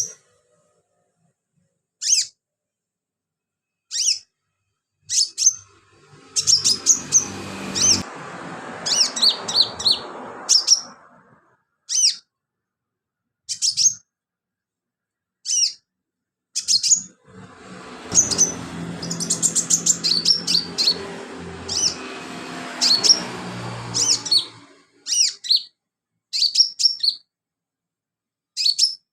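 A sunbird (Indonesian 'kolibri' or 'conin') singing hard: short, sharp, high chirps every second or two, with two long dense runs of rapid twittering notes. A low background noise sits under the runs.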